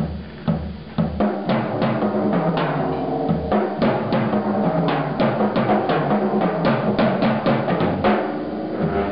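Jazz drum kit played busily: rapid snare and tom strokes with bass drum and repeated cymbal hits, the strokes thickening in the middle of the passage.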